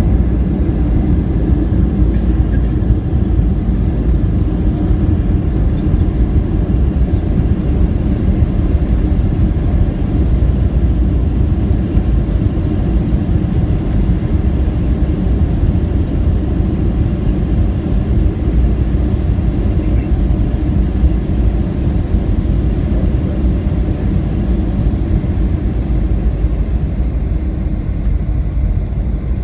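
Cabin noise of a Boeing 757-200 rolling along the runway just after landing: a steady, loud low rumble from the engines and the wheels on the runway, easing slightly near the end as it slows.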